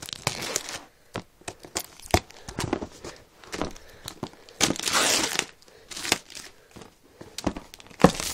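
Clear plastic wrapping on a cardboard box crinkling and tearing as it is handled and pulled at, in irregular rustles with small clicks and scrapes. A longer, denser stretch of crinkling comes about five seconds in.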